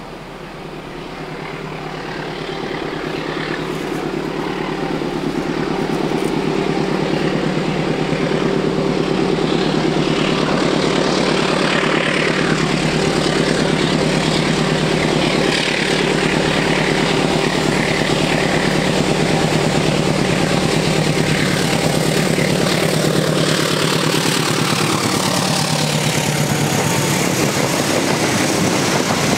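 Diesel-electric locomotive hauling a passenger train, its engine drone growing louder over the first several seconds as the train approaches, then holding steady and loud as the locomotive and coaches pass close by. Near the end a tone slides downward.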